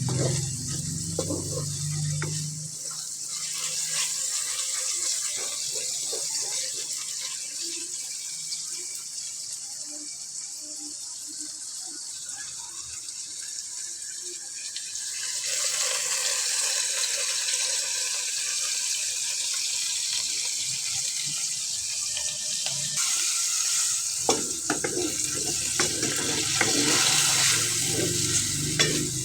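Kitchen tap running into a sink with a steady hiss of water. About halfway through, the flow becomes fuller and a little louder.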